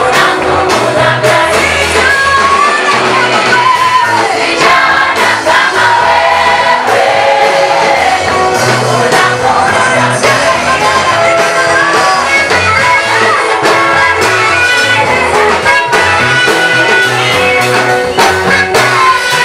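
A gospel praise team singing a Swahili worship song over band accompaniment with a bass line that moves every second or so.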